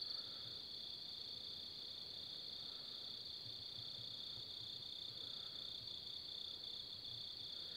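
Crickets chirring in a steady chorus, a constant high-pitched trill.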